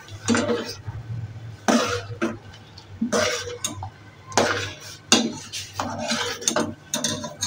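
A steel spoon scrapes and clinks against a stainless steel saucepan while vermicelli is stirred into hot milk, in repeated strokes about once a second.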